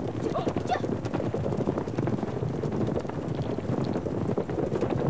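Horses galloping: a dense, continuous clatter of hoofbeats.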